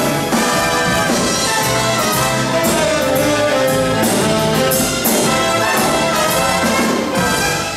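Symphony orchestra playing an instrumental passage of a Great American Songbook arrangement, with no singing.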